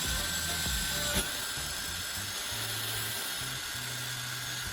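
Electric drill running steadily as it bores a hole through a metal spoon handle, its motor whine sagging slightly under load, with one short knock about a second in. Background music plays underneath.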